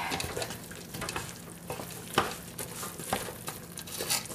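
A spoon stirring hot peanut brittle syrup thick with peanuts in a heavy saucepan, the boiling candy sizzling steadily underneath, with a few sharp knocks of the spoon against the pot. The mixture is at about 280°F, climbing toward the hard-crack stage, and is kept stirred so the peanuts do not burn on the bottom.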